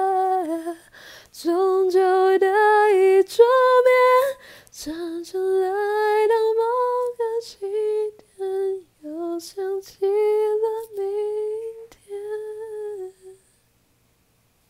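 A woman singing unaccompanied: the slow closing phrases of an a cappella song, one voice with no instruments. The melody comes in short held notes and breaks off about a second before the end.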